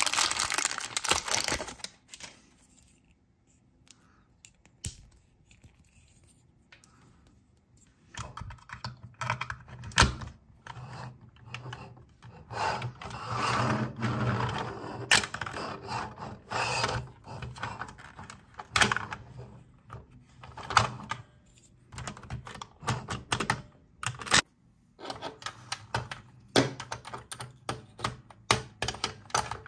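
Crumpled paper wrapping crinkling as it is pulled off a toy vehicle for the first two seconds, then, after a quiet gap, irregular sharp clicks and taps of hard plastic toy parts being handled and fitted together.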